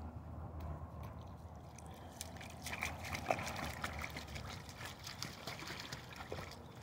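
German shepherd wading through a shallow woodland pool, its legs splashing and sloshing the water. The splashing picks up about two seconds in as the dog moves out into the water.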